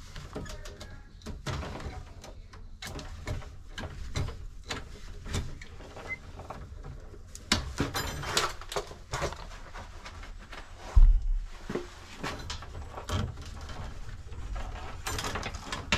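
Hand work splicing solid copper neutral wires inside a metal electrical panel: irregular clicks, scrapes and rustles of wire and gloved hands handling pliers and twist-on wire connectors, with a louder thump about eleven seconds in.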